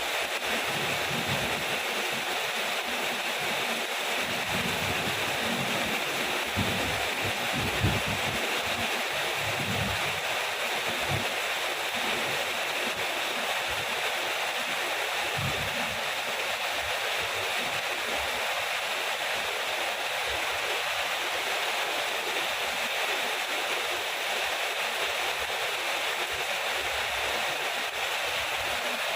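Steady heavy rain falling, an even hiss throughout, with short low rumbles coming and going in the first half.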